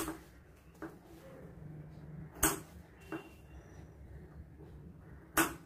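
Sewing scissors snipping small marking notches in fabric: three sharp snips about two and a half seconds apart, with softer clicks and fabric handling between.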